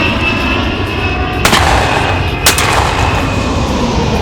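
Two shotgun shots about a second apart, fired at game birds, over a steady low rumble.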